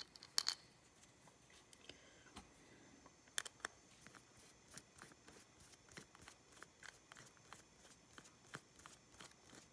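Faint, scattered small clicks and ticks of a screwdriver driving the float-bowl screws into a small aluminium carburetor body, with sharper clicks about half a second and three and a half seconds in.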